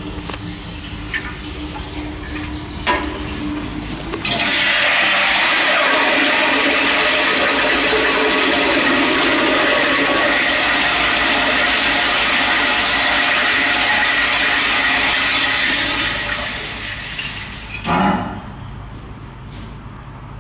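Stainless steel toilet flushing. About four seconds in, a loud rush of water starts suddenly, with a steady high whistle in it, and runs for about twelve seconds before tapering off. It ends with a single thump.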